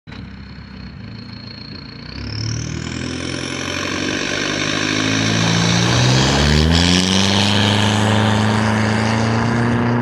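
GMC Sierra pickup engine idling, then pulling away hard, its note rising in pitch about two seconds in and again later as it speeds off. A high whistle climbs steeply in pitch along with it, and the tyres spin on loose gravel.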